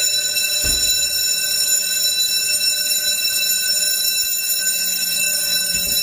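Building fire alarm bells ringing loudly and continuously as a steady, unbroken metallic ring with several high tones, sounding for a fire alarm test. A single low thump comes under a second in.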